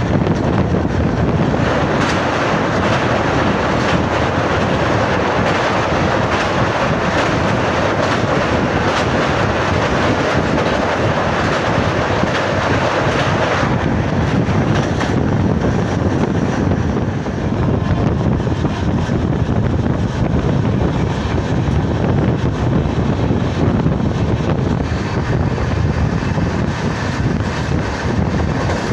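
Passenger train running at speed, heard from an open coach doorway: wheels rumbling on the rails and wind rushing over the microphone. A fuller, brighter rush in the middle of the sound drops away about fourteen seconds in, leaving a lower running rumble.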